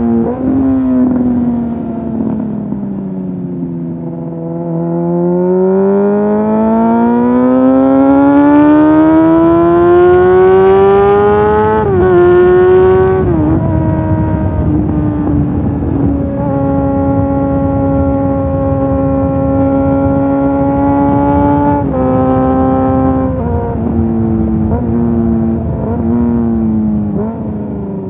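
Motorcycle engine under way with wind rushing past. The revs dip, then climb steadily for several seconds to a peak about twelve seconds in. They drop sharply at a gear change and hold steady, then step down several times near the end as the bike slows.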